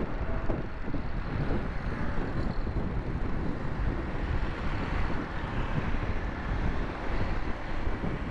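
Wind buffeting the microphone of a moving motorcycle, over a steady rumble of engine and tyre noise from the bike and the road traffic around it.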